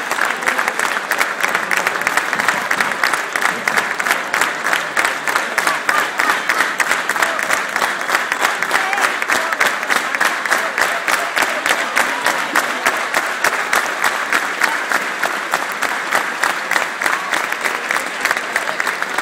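Crowd applauding: dense, steady hand clapping from many spectators.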